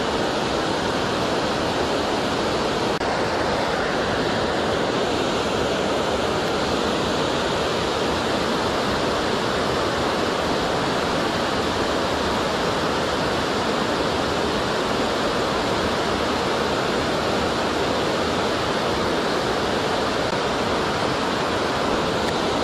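Water pouring over a small dam's spillway: a steady, unbroken rushing.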